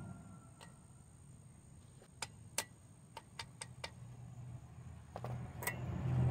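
Light metallic clicks and clinks, about a dozen at uneven spacing, as a metal driver adapter is set against a wheel bearing race in the hub. A low hum grows near the end.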